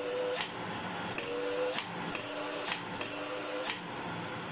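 Vacuum cleaner's bag-full indicator snapping back and forth with sharp clicks, about seven at roughly two a second, a really violent bag full. Faint short whistles of air come between the clicks over the steady sound of the running cleaner.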